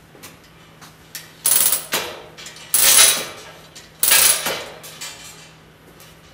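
Metal parts clattering three times, each a short jangling rattle of about half a second, roughly a second and a half apart, as steel parts of a locomotive truck are handled. A faint steady hum runs underneath.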